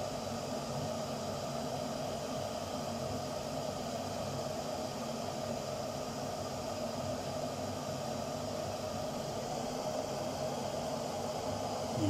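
Stainless-steel electric kettle heating water with sausages in it, a steady hissing rush as the water gets hot but is not yet at the boil.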